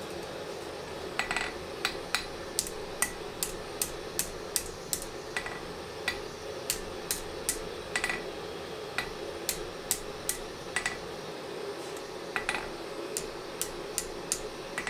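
Hand hammer striking red-hot steel on an anvil: sharp, ringing blows about two to three a second, in runs with a short pause about two-thirds of the way through, as the drawknife blade is forged to shape. A steady rushing noise runs underneath.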